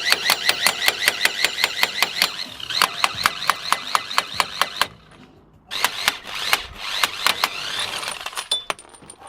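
Impact wrench hammering on a stubborn fastener: a fast, even rattle of blows over a whine, running about five seconds, pausing briefly, then going again for a couple of seconds.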